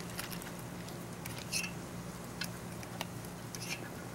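Faint scattered clicks and soft wet rustles as fingers pick cooked ramen noodles out of a stainless steel pot, over a steady low hum.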